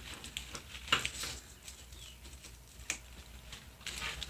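Small wire snippers clipping through artificial flower stems: a few sharp snips, the loudest about a second in and near three seconds in.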